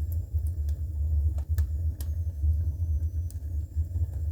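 Wood fire burning in the firebox of an add-on wood furnace: a loud, uneven low rumble with a few faint crackles scattered through it.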